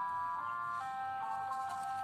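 Background music: a simple electronic melody of bright, sustained notes that change step by step, several at once.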